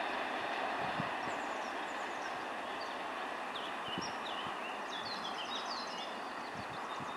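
Freight train of covered hopper wagons rolling away on the rails: a steady rumble of wheels on track, slowly fading, with a few faint knocks. Small birds chirp over it from about a second in.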